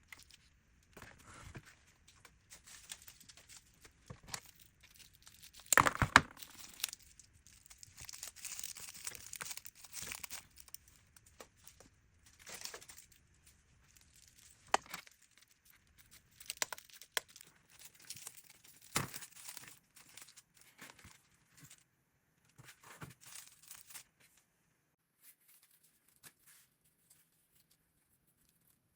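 Dry craft material being handled: irregular rustling, crinkling and tearing, with a sharp crackle about six seconds in, dying away near the end.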